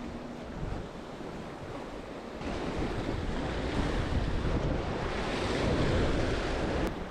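Surf breaking and splashing against shoreline boulders, with wind buffeting the microphone. The surf gets louder about two and a half seconds in, and there is one sharp click near the end.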